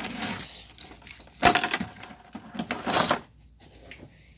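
Handling noise: the phone being picked up and repositioned, rubbing and scraping against clothing in three loud, rough bursts of about half a second each.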